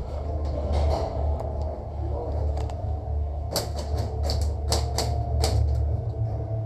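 A quick, irregular series of about eight sharp cracks from airsoft guns firing, about three and a half to five and a half seconds in. Under them runs a steady low rumble.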